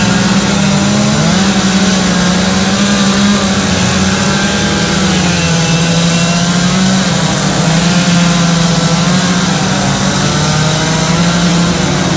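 Chainsaws running at high revs in continuous carving, their engine pitch wavering slightly.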